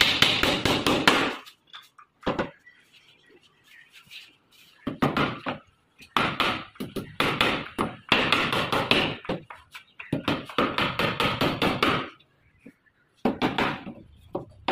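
Hammer tapping small nails into a plywood cage frame, in quick runs of taps with short pauses between them.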